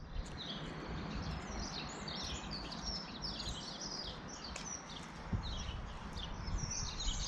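Small songbirds chirping and singing over a low steady rumble of background noise, with one soft thump about five seconds in.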